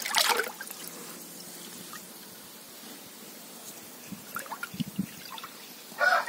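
Water trickling and dripping in a concrete tank of soaking paddy, with a short loud splash right at the start. A loud pitched call, a rooster's crow by its evenly stacked lines, begins just at the end.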